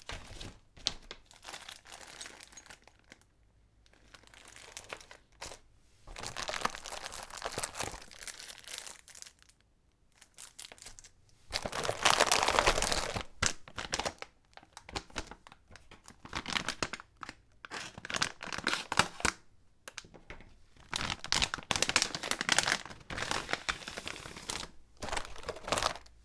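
Keyboard accessory packaging being handled and opened, crinkling and tearing in irregular bursts with short pauses, loudest about halfway through.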